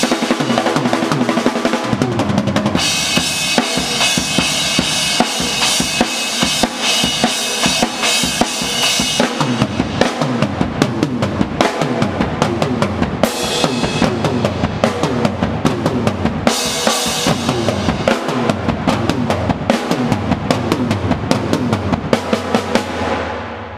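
Drum kit played hard and fast: bass drum, snare hits and crashing cymbals in a dense groove, falling away just before the end.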